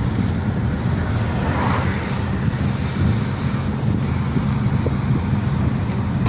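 Steady road and engine noise of a moving car, heard from inside the vehicle, with wind buffeting the microphone.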